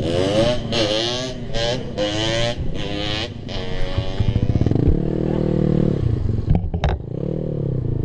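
Kawasaki D-Tracker supermoto's single-cylinder engine revved up and down in a series of quick throttle blips, then held at higher revs for about a second, with a few sharp clacks about six and a half seconds in.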